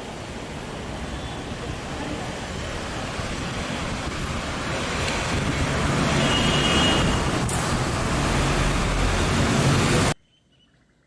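Train running on the track, its rumble and wheel-on-rail noise growing steadily louder, then cut off abruptly about ten seconds in.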